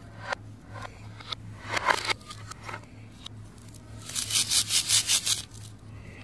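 Plastic toy knife scraping through a velcro-joined toy fruit on a plastic cutting board in a few short strokes, then about four seconds in the velcro halves of a toy fruit pulled apart with a rapid ripping crackle lasting about a second and a half. A faint low hum runs underneath.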